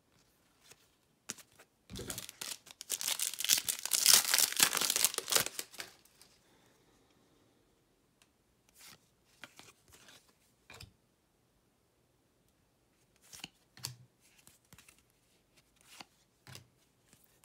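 A trading-card pack wrapper being torn open and crinkled, loudest for about four seconds near the start. It is followed by a few soft, short flicks of cards being handled.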